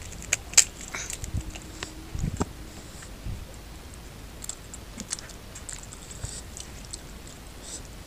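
Close-up eating sounds: wet, sticky clicks and smacks of bare hands pulling apart oily curried goat head meat, loudest in the first couple of seconds, then softer mouth smacks and chewing as he eats by hand.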